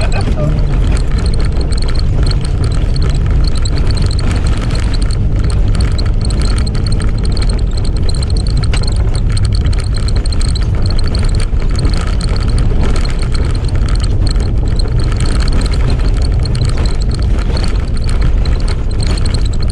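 Off-road 4x4 driving along a dirt track, heard from inside the cab: steady engine and drivetrain noise with tyre rumble.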